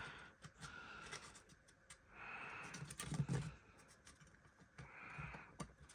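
Faint scattered clicks and light scraping of small model locomotive parts being handled and fitted together by hand.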